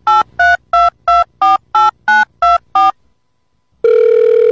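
Telephone keypad touch tones: about ten quick beeps of a number being dialled, roughly three a second, each a different pair of notes. After a short pause a steady telephone tone starts near the end, the ringing tone of the call going through.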